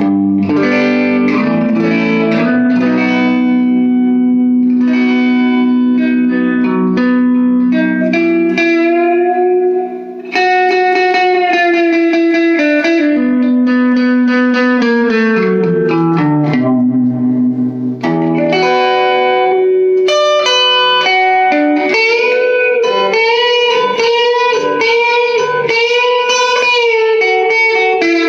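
Electric guitar on its neck pickup, played clean through a small all-tube amp with the tone knob full up: chords and single-note lines with held, bent notes and vibrato. The playing breaks off briefly twice, about ten and eighteen seconds in.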